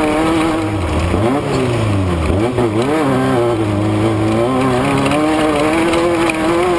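Off-road race vehicle's engine running under load, its revs dropping and climbing again a few times in the first three seconds, then holding fairly steady.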